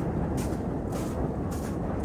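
Footsteps crunching in snow at a steady walking pace, about two steps a second, over a steady low rumble.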